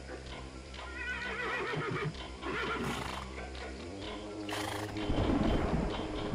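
A horse whinnying, a quavering call about one to three seconds in, over background music.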